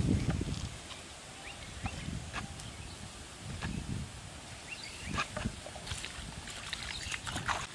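Gusts of wind rumbling on the microphone, with scattered light knocks and clicks from hollow bamboo tube traps being handled, and a few bird chirps near the end.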